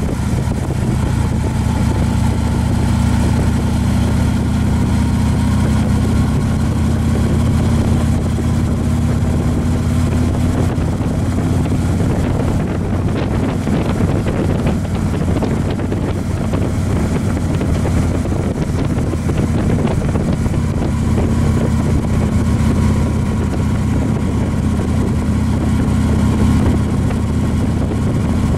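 A vehicle driving at a steady speed on a paved road: a constant engine hum and tyre noise, with some wind noise.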